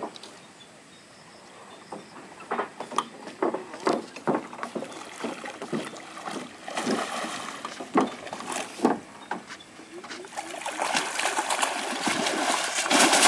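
A large hooked fish thrashing at the water's surface beside a wooden dock: scattered short splashes and knocks at first, building over the last few seconds into continuous heavy splashing as it is scooped into a landing net.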